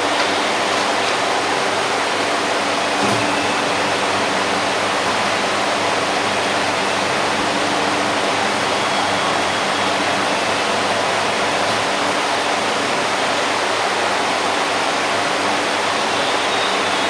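A steady, loud rushing noise, even in level, with no gunshots.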